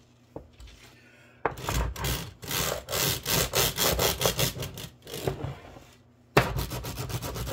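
A block of 2x4 rolled back and forth on a wooden workbench over a thin jewelry wire to straighten it, a scraping rub of wood on wood in quick strokes, about three or four a second. The strokes stop for about a second near the middle, then start again.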